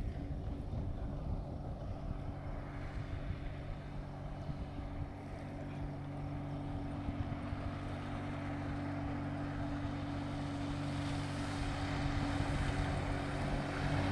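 Motorboat running at speed across the water, its engine a steady hum that grows louder as it comes closer, with the rush of the hull and spray building over the last few seconds.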